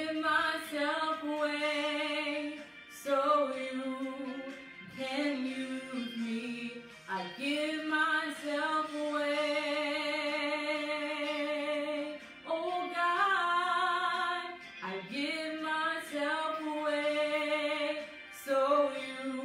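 A woman singing a slow gospel worship song solo, in phrases of long held notes with vibrato and short breaks between them.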